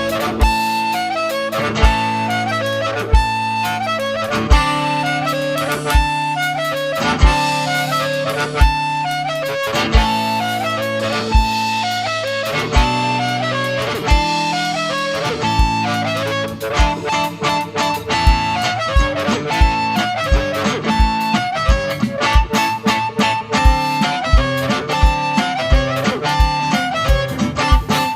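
Blues band playing an instrumental break: electric guitar and bass over a steady kick-drum beat, with a harmonica carrying the lead. The drumming gets busier about halfway through.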